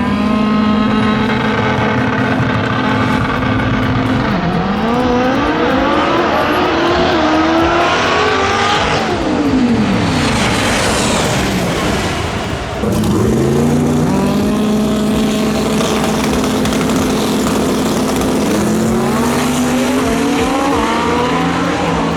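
A drag-racing car's engine held at steady revs, then accelerating with its pitch climbing in steps through gear changes before falling away. About 13 seconds in, the sound cuts to an engine that rises from low, holds steady revs, and starts climbing again near the end.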